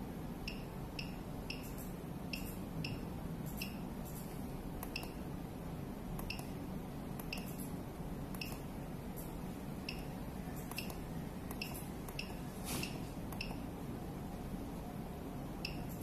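Short high electronic beeps from a veterinary ECG machine, repeating at irregular intervals about every half second to a second, over a steady low electrical hum.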